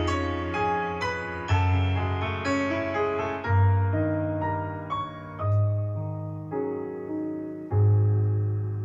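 Solo piano playing a slow, gentle melody, its struck notes fading away over low bass notes that are each held a second or two.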